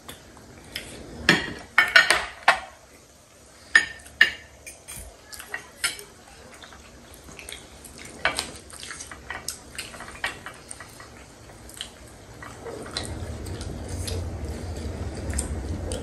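Metal spoons and forks clinking and scraping against ceramic plates and small sauce bowls during a meal: scattered sharp clinks, a quick loud cluster of them about two seconds in. A steadier low rustling noise builds over the last few seconds.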